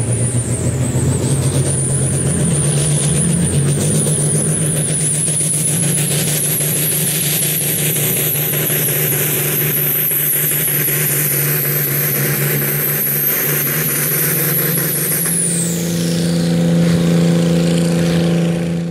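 International Harvester Pro Farm pulling tractor's turbocharged diesel running at full throttle under load, its turbo whistle wavering and climbing slowly higher. About three-quarters of the way through, the whistle drops away sharply as the throttle comes off at the end of the pull, leaving the engine's lower running tone.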